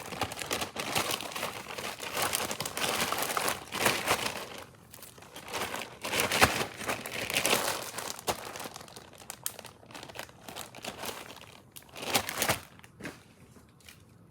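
Plastic bags and packaging crinkling and rustling in irregular bursts as items are handled and packed away, busiest in the first half.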